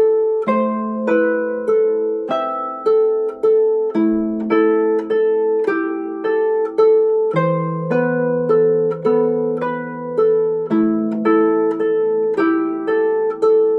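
Lever harp played with both hands: a steady, even line of plucked melody notes over plucked bass notes that ring on beneath them.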